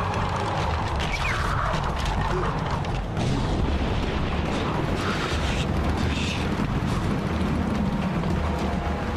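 Animated storm sound effects: a strong wind blowing with rumbling thunder underneath.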